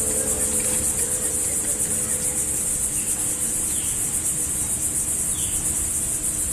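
A steady, shrill insect chorus, a high pulsing buzz that holds without a break, over a low background rumble.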